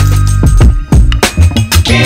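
Background music: a song with a steady drum beat and deep bass.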